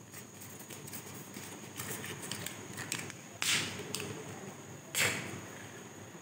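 Paper-and-foil wrapper crinkling and crackling as it is peeled off a surprise-egg capsule by hand, with two short, louder rustles past the middle.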